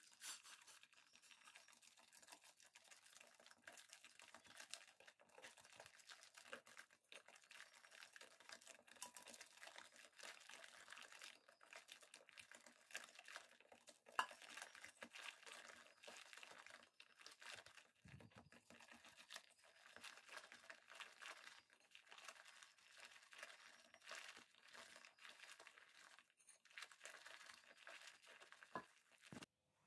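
Faint, continuous crinkling and rustling made of many small crackles, like something papery or plastic being handled, with one sharper click about halfway through.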